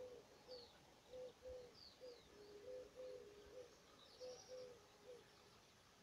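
Faint low cooing of a dove: a three-note phrase repeated about every second and a half, with a few faint high chirps of small songbirds.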